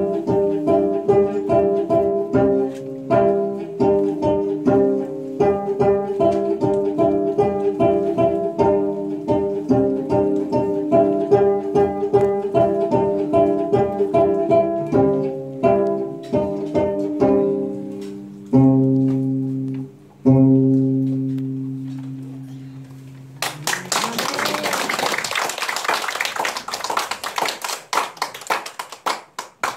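Gayageum playing a hymn melody in quick plucked notes, slowing to a close on two low notes that ring and fade about two-thirds of the way through. A burst of applause follows near the end.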